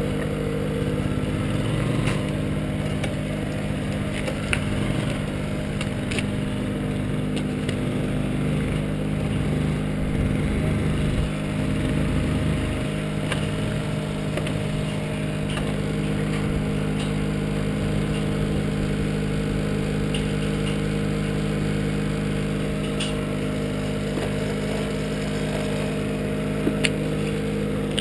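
Small scooter engine idling steadily, with a few short clicks and knocks here and there.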